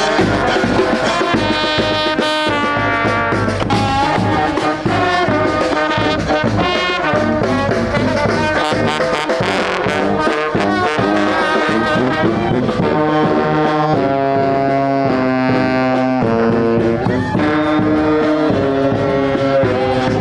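Street brass band playing, trombones and trumpets over drums, with long held chords in the second half.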